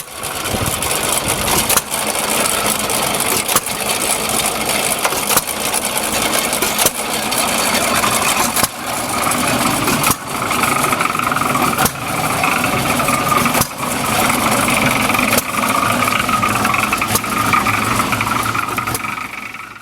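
Ducati motorcycle engine running loudly, with a brief dip in level about every one and a half to two seconds.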